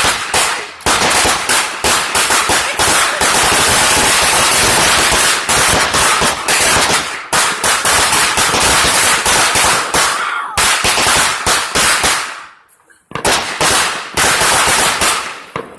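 Fireworks going off in a long, rapid volley of loud bangs, close together like a string of firecrackers. The volley fades out about twelve seconds in, and after a brief lull a second shorter burst of bangs starts and stops near the end.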